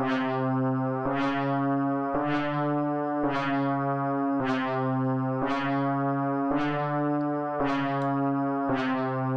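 Synthesizer patch built from a wavetable bass preset with phase and frequency modulation added, playing brassy, trumpet-like repeated notes about a second apart. Each note starts with a bright edge that fades quickly, shaped by the slower attack on the filter envelope.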